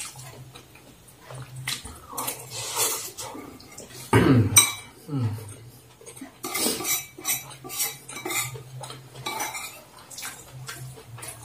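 Metal fork and plastic spoon clinking and scraping against a ceramic bowl, gathering the last fried noodles, in many short irregular clicks. A brief low hum from the eater falls in pitch about four seconds in.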